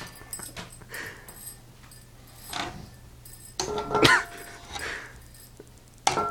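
Short strained, muffled vocal sounds from a person, the loudest a pitched cry about four seconds in and another starting near the end, over a faint steady low hum.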